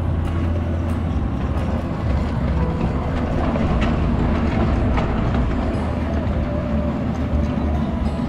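Miniature ride-on train running along its track with a steady low drone and rumble, and a couple of sharp clicks about halfway through.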